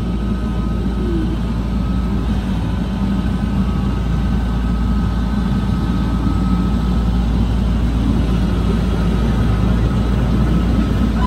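A heavy engine running steadily with a deep, even rumble.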